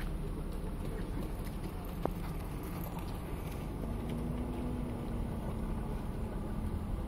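Low rumble of wind buffeting the microphone, with faint muffled hoofbeats of a horse cantering on a soft rubber-chip arena surface; a faint steady hum comes in about four seconds in.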